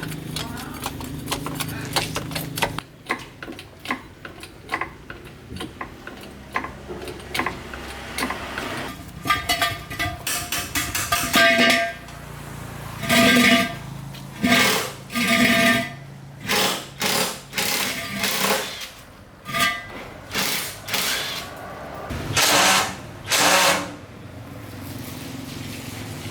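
Mechanical tool work on metal: a run of quick clicks and taps, then a series of short bursts about a second long, each carrying a steady ringing tone.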